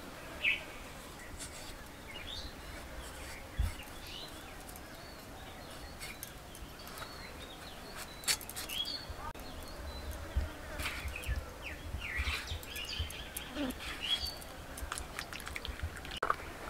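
Small birds chirping on and off, with scattered sharp clicks and a few dull knocks, more of them in the second half, as a potato is peeled and sliced on a boti, a floor-mounted curved kitchen blade.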